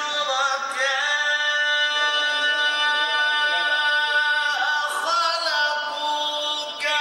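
A male Quran reciter chanting in the slow, ornamented mujawwad style into a microphone, holding long melismatic notes, with a short break about four and a half seconds in.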